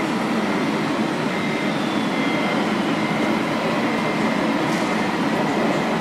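Steady noise of a busy indoor exhibition hall, with a faint high whine running through it.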